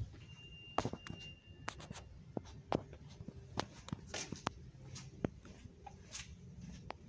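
Indoor hall ambience: scattered sharp clicks and knocks over a low steady hum, with a brief high steady tone lasting about a second near the start.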